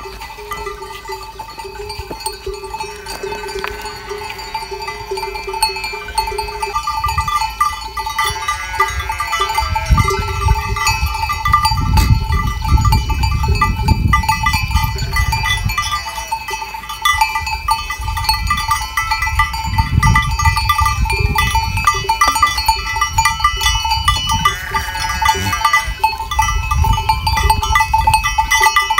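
A flock of sheep and goats with their bells ringing steadily and a few bleats. A low rumbling noise grows louder from about seven seconds in.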